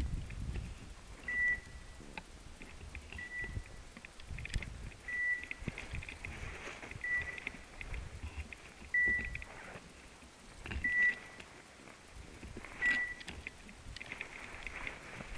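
Hunting dog's beeper collar giving a short, high beep about every two seconds, seven times, over faint rustling of movement through brush.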